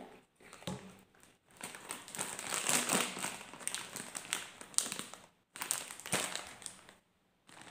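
Foil snack bag crinkling as it is handled and shaken, in a run of irregular crackling with a short break about five and a half seconds in, then one more burst.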